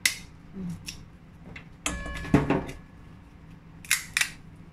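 Stalks being snapped off dried shiitake mushrooms by hand: a string of short, sharp cracks and crackles, the loudest a little over two seconds in.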